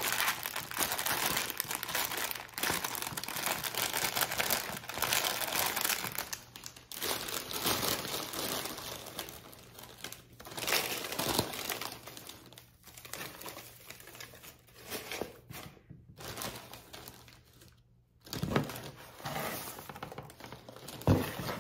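Crinkle-cut paper shred and its plastic bag crinkling and rustling as handfuls are pulled out and dropped into a cardboard gift box. The rustling is dense for the first several seconds, then comes in shorter bursts with brief pauses.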